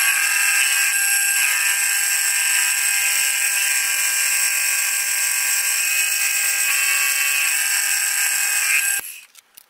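Milling machine end mill cutting the profile of a locomotive motion plate, in footage sped up eight times, so the machine's running sound comes out as a steady high-pitched whine of several tones. It cuts off abruptly about nine seconds in.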